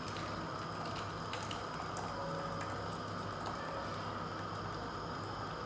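Meat cooking water pouring in a steady stream from an aluminium pressure cooker into a plastic bowl.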